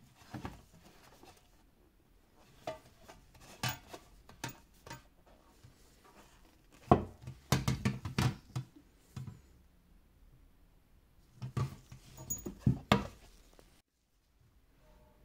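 Gloved hands handling a glass perfume bottle and its cylindrical tin box: scattered taps, knocks and rubbing as they are picked up, turned over and set down on a table. The clatter is busiest about seven to nine seconds in and again around twelve seconds.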